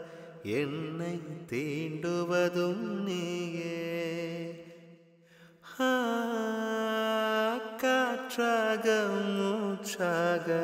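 Malayalam film song over the closing credits: a singer holds long, drawn-out notes over musical accompaniment, with a brief lull about five seconds in before the voice comes back.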